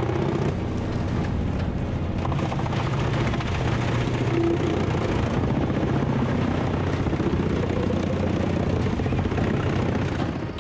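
Engine-driven wood-grinding machine running steadily under load, a dense mechanical rumble and clatter as logs are crushed into fuel chips.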